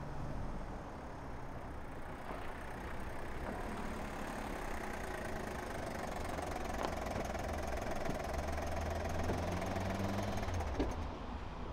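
A Vauxhall Corsa hatchback drives slowly up and pulls to a stop, its engine running at low revs. The engine grows louder as the car arrives and falls away shortly before the end, followed by a small knock.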